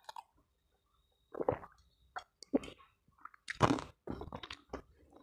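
Close-miked eating sounds: a few gulps of a milky drink from a glass jar, then wet chewing of food.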